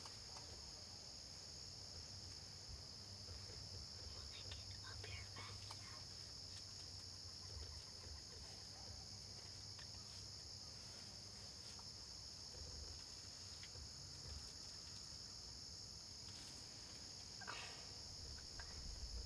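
Faint, steady, high-pitched trill of field insects chirring in the evening, unbroken throughout, over a low background rumble.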